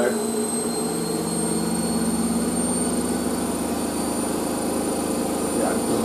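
Hoover SIX AAA160 Whisper 1600 washing machine spinning up on its final spin toward 1600 rpm: a steady high motor whine and drum hum whose pitch rises slowly as the drum speeds up.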